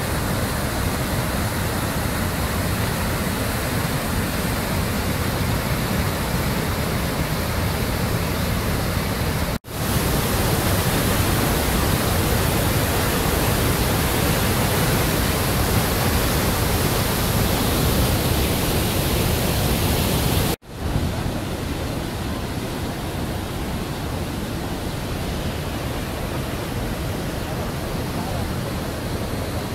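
Sunwapta Falls and the rapids of the Sunwapta River: a steady loud rush of white water. It breaks off twice for an instant, about ten and twenty seconds in, and is a little quieter after the second break.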